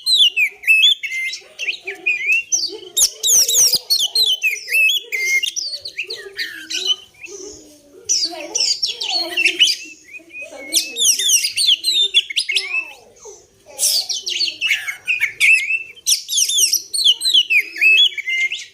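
Oriental magpie-robin (kacer) singing a lure song: bursts of rapid, varied chirps and whistles, high-pitched and coming every few seconds, with softer, lower calls running underneath.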